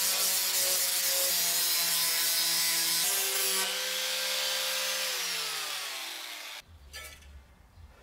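Electric angle grinder with an abrasive disc grinding lightly over fresh flux-core welds on thin sheet steel, taking down the high spots: a steady motor whine under gritty rubbing. About five seconds in its pitch falls as it spins down, and it cuts off suddenly.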